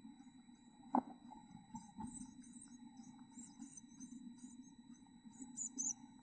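Black-capped chickadee nestlings begging inside the nest box: faint, high-pitched chirps in quick runs that thicken from about two seconds in, over a steady low hum. A sharp knock comes about a second in and a lighter one about two seconds in.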